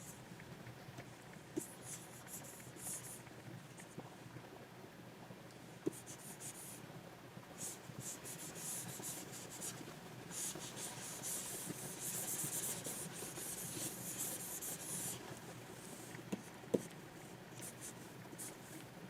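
Stylus nib scratching across a Wacom pen tablet in short strokes, with a longer run of continuous strokes in the middle, and a few sharp taps of the pen on the surface.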